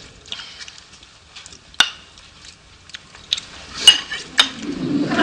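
Forks clinking and scraping on plates as several people eat, scattered light clinks with a few sharper metallic ones, the loudest just before four seconds in.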